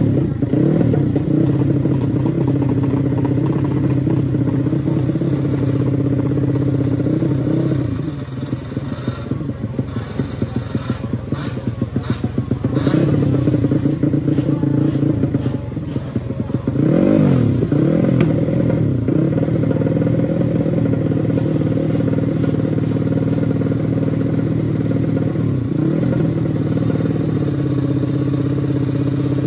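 Small-displacement drag-racing motorcycle engine running loud and steady at a fast idle, with short throttle blips. One rev up and back down comes about seventeen seconds in. A few sharp clicks sound briefly about ten to thirteen seconds in.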